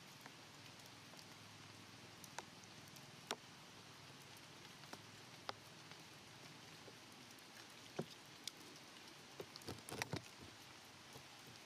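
Faint, steady hiss of light rain, with scattered drips ticking on wet concrete and a quick cluster of louder ticks near the end.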